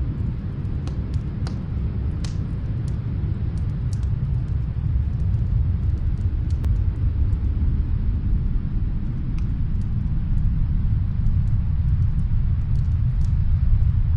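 Snowstorm wind as a steady low rumble, swelling slightly toward the end, with faint scattered crackles of a wood fire heard from another room, most of them in the first few seconds.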